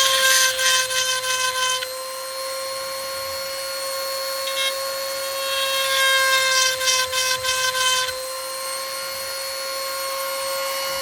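Electric rotary tool running at high speed with a steady whine, its 5/32 grinding-stone bit twice grinding against a chainsaw chain tooth with a rasping sound, once at the start and again from about four and a half to eight seconds in.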